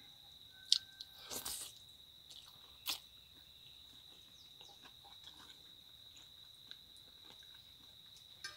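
A man eating spaghetti up close: chewing and slurping noodles, with a few sharp mouth clicks and a short noisy slurp about a second and a half in. Behind it runs a steady high-pitched insect drone.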